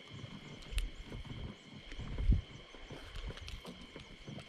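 Handling noises of gloved hands unhooking a small grouper from a metal microjig: scattered knocks and low rumble, a sharp click just under a second in, and a louder thump a little past two seconds in.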